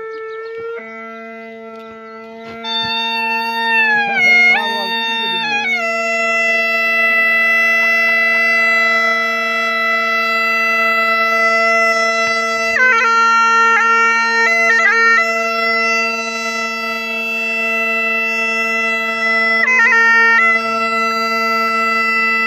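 Bagpipes playing. The steady drones come in about a second in, and the chanter joins a couple of seconds later with a melody of held notes broken by quick grace-note flourishes over the unchanging drone.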